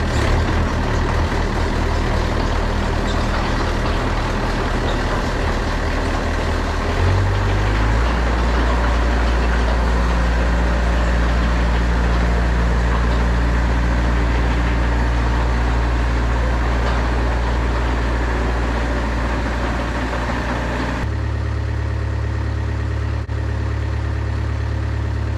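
Yanmar mini excavator's diesel engine running steadily during a test drive of the tracks. About seven seconds in its note shifts lower and gets a little louder, and about twenty-one seconds in the sound changes abruptly and turns duller.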